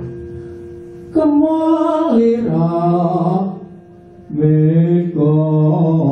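Javanese traditional vocal chant: a singer holds long, slightly wavering notes in a few short phrases, over soft gamelan accompaniment. The sound drops briefly about four seconds in before the next phrase.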